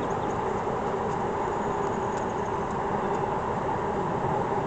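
Honeybees buzzing around an opened hive: a steady, droning hum.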